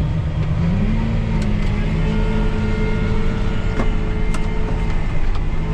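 Tractor engine running steadily under load while pulling a disc harrow through a field. Its pitch rises slightly about a second in and settles back near the end, with a few sharp clicks over it.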